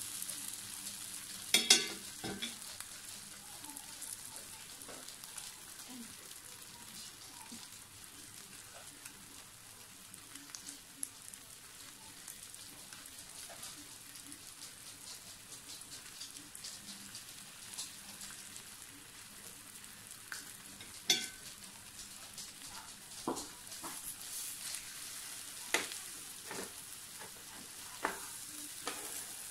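Teriyaki-glazed pork ribs sizzling on an electric tabletop grill plate, a steady hiss. A few sharp clacks of metal tongs against the plate and ribs as they are turned: two about two seconds in, and several more spread over the last third.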